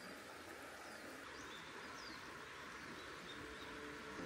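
Faint steady rush of a mountain stream with a few short high bird chirps. Soft chime-like music tones fade in near the end.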